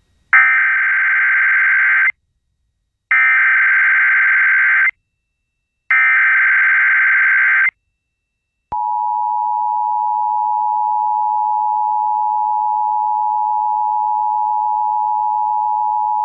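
Emergency Alert System test header: three bursts of digital SAME data tones, each about two seconds long with a second's gap between them, then the EAS two-tone attention signal, a steady dual tone held for the rest.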